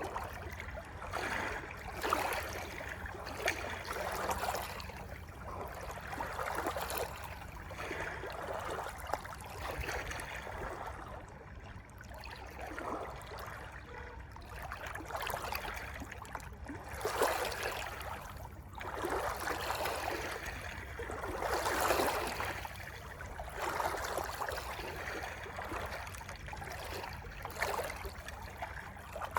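Flowing stream water, its sound swelling and fading unevenly every second or two over a steady low rumble.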